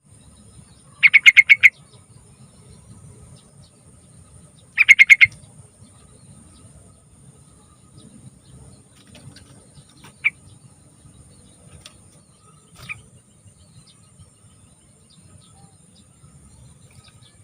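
Yellow-vented bulbul (trucukan) singing: two short bursts of quick repeated notes about four seconds apart, then a couple of faint single notes, over a steady faint high hiss.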